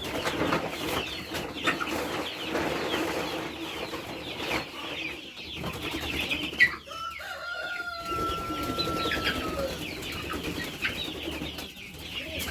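A flock of young chickens clucking and chirping together in a poultry house, with some wing flapping. A thin, steady, whistle-like tone is held for about two seconds a little past the middle.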